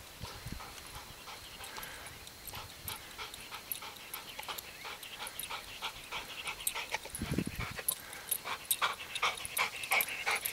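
Chocolate Labrador returning over gravel: rhythmic crunching paw steps and panting, faint at first and growing louder as the dog comes close near the end.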